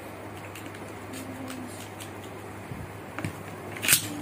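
A few small plastic clicks as a Beyblade is fitted to its ripcord launcher, then near the end one sharp, loud rip as the ripcord is pulled and the Beyblade is launched into the plastic stadium.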